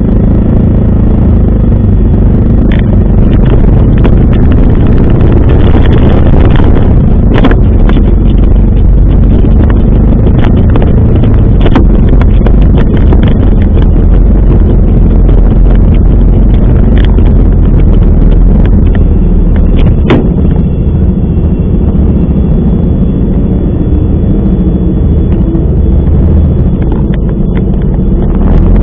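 Steady wind rush and a running vehicle engine, as from a moving scooter, with wind buffeting the microphone. A few sharp clicks come through, one about seven seconds in and one near twenty seconds.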